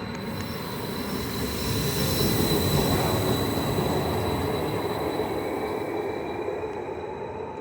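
VR Snabbtåg passenger train moving past close by, its rumble swelling to a peak about two to three seconds in and then fading, with a steady high-pitched wheel squeal running through it.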